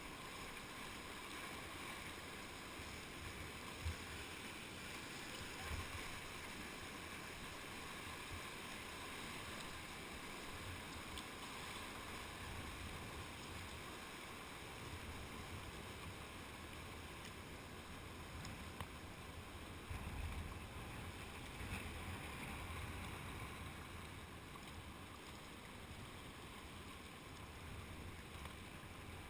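Steady rush of shallow river rapids around a whitewater kayak, heard close to the water, with a few dull low thumps from paddling and the boat moving through the current.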